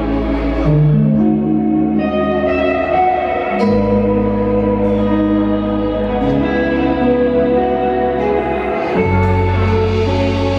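Live rock band with electric guitar: ringing chords that change every second or two over deep held low notes.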